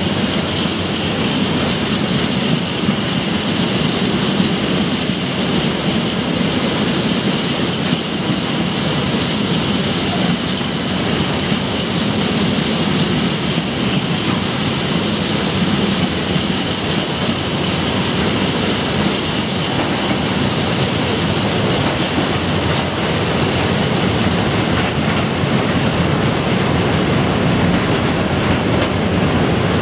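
Container freight train wagons rolling past on steel wheels: a steady, continuous rumble of wheels running over the rails that holds throughout as wagon after wagon goes by.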